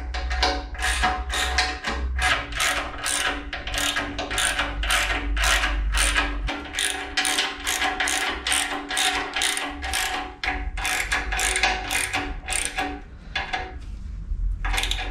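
Ratchet spanner clicking rapidly as nuts are tightened on the bolts holding a steel locomotive frame stretcher, about three clicks a second. The clicking stops about thirteen seconds in, and a few last clicks come near the end.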